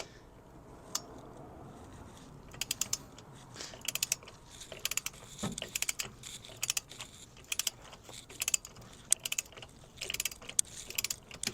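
Click-type torque wrench with a 32 mm socket ratcheting on a rear axle nut, in short bursts of rapid clicks, as the nut is run down toward 160 ft-lb.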